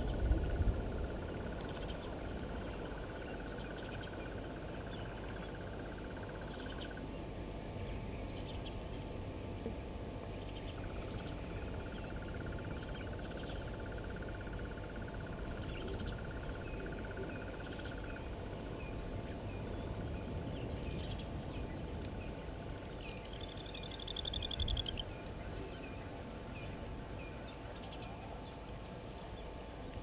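Outdoor bush ambience with scattered faint bird chirps and a thin steady high whine that comes and goes twice. One louder, arching bird call comes about 23 seconds in.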